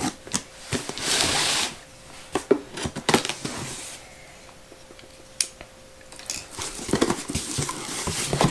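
Packaging being handled: crinkling and rustling of wrapping and cardboard, loudest for about half a second a second in, with scattered light knocks and clicks.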